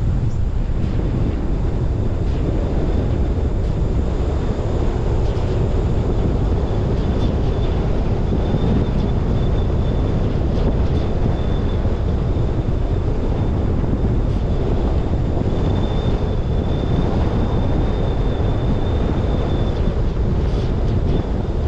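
Wind buffeting a roof-mounted GoPro Hero 10 over the road and tyre noise of a car driving along, a steady loud rumble. A faint thin high whine comes and goes in the middle of it.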